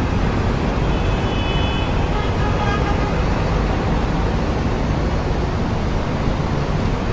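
Strong wind gusting against the microphone: a loud, steady rush with heavy, uneven low rumble. A few faint high tones sound briefly about a second in.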